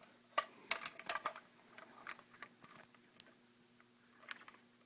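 Small screwdriver clicking and scraping against the plastic parts of a Water Ridge dual flush toilet's flush mechanism while prying a piece loose: a run of light clicks in the first second and a half, then sparser, fainter ticks.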